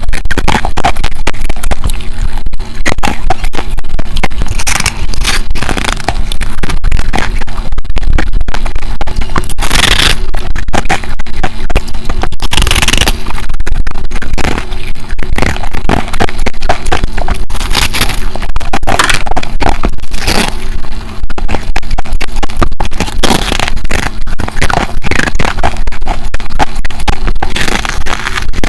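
Humidifier ice bitten and crunched close to the microphone: loud, dense crackling crunches following one another with hardly a break, and sharper bites standing out every few seconds.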